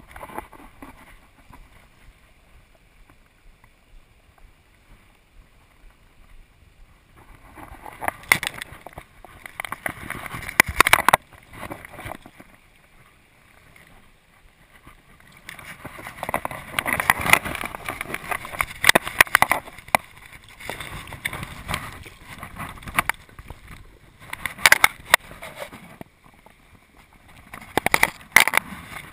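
A hooked fish splashing and thrashing at the surface and then in a landing net, heard as irregular bursts of splashing over the run of river water. The bursts come in several spells, the last as the fish is netted near the end.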